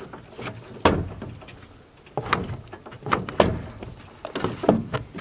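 Rope being yanked hard several times through an auto-locking trucker's hitch, each pull giving a sharp knock or creak as the line tightens against the load, with rope rubbing between pulls.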